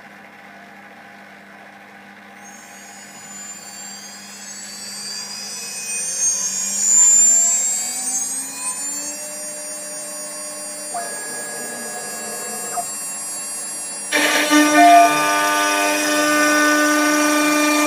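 Minimo 0609TT desktop CNC router: its spindle whine rises in pitch over several seconds, then holds steady. A short motor buzz comes partway through, and near the end a sudden louder, denser cutting noise sets in as the bit bites into plywood.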